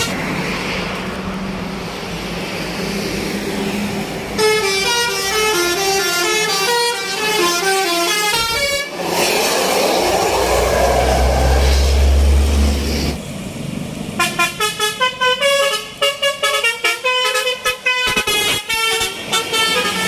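Indonesian tour bus 'telolet basuri' musical air horns playing stepping melodies in two runs. Between the runs the bus's engine rumbles loudly as it passes close. The second run is quicker and choppier, with short staccato notes.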